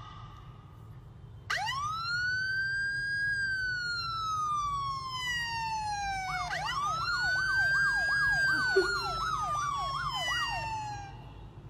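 A recorded police siren played through a phone's small speaker. One long wail rises quickly and falls slowly, then a second wail starts with a fast yelping warble over it, about three sweeps a second, and stops shortly before the end.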